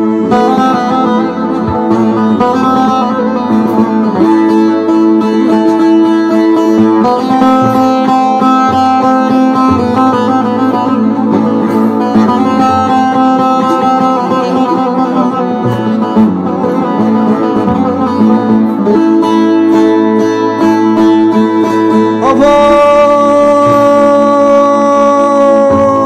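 Bağlama (Turkish long-necked saz) played solo with a pick: quick runs of plucked notes over a steady drone string, an instrumental break in a Turkish folk song. Near the end a long held sung note comes in over the strings.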